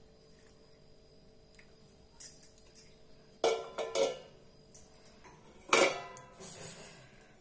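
Stainless steel plate clinking and clattering against a steel bowl: a few light clinks, then three louder metallic clatters with a brief ring, the loudest about six seconds in.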